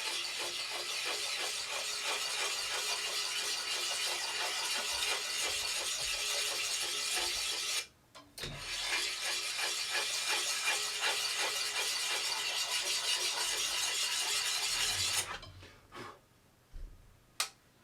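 Steel bit of a Belknap double bit axe being hand-sharpened, rapid rasping strokes of an abrasive across the edge to grind out nicks. It runs in two long stretches with a brief pause about eight seconds in, then a few light knocks near the end.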